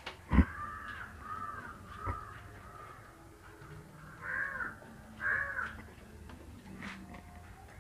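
A bird calling in a series of short, arched calls, the two loudest about four and five seconds in. A sharp knock comes just before the first call, and a lighter one about two seconds in.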